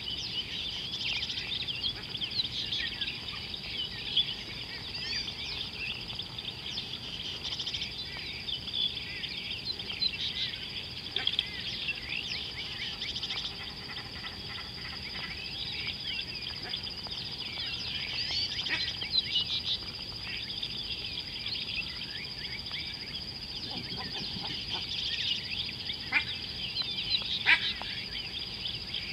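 Many birds chirping and calling at once, overlapping constantly, over a steady high-pitched hum; a few sharper, louder calls stand out near the end.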